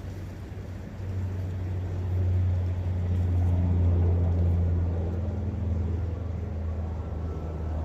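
A distant engine's low drone that swells about a second in, is loudest a few seconds later, then slowly eases off.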